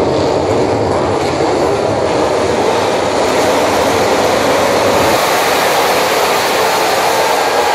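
Many MotoGP racing motorcycles running at once, their four-stroke engines blending into one dense, continuous wall of loud engine noise.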